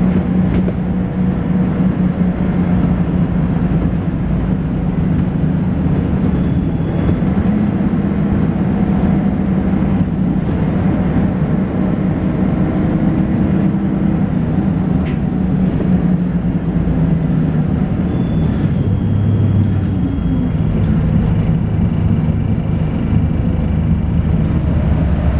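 Volvo B10BLE single-decker bus heard from inside while under way: the engine and driveline give a loud steady drone that rises a little about seven seconds in and drops back around 18 seconds, with faint thin high-pitched whines above it.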